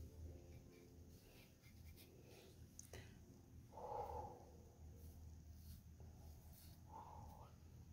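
Near silence: room tone with a faint low hum and faint handling rustles, and two short faint sounds about four and seven seconds in.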